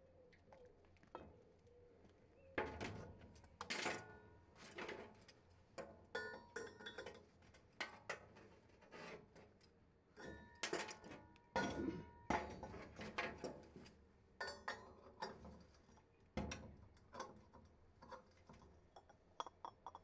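Scattered metallic clinks and knocks, some ringing briefly: steel crucible, tongs and molds handled during an aluminium casting pour.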